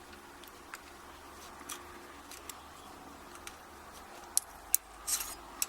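Light metallic clicks and taps of small lock parts being handled: a few scattered ones at first, then a cluster of sharper clicks about four to five and a half seconds in.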